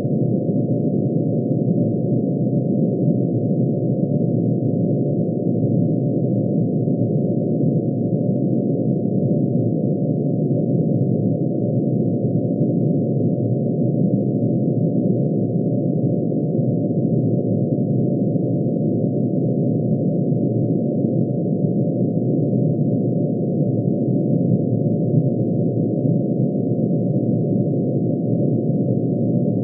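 Synthesized tone made of many sine waves added together, one for each line in mercury's atomic emission spectrum, pitch-shifted down into hearing range. It is a steady, dense drone of many close pitches that never changes.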